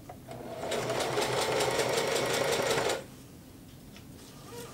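Singer Heavy Duty sewing machine stitching a test seam through dense 400D pack cloth. It picks up speed over the first second, runs steadily, and stops abruptly about three seconds in.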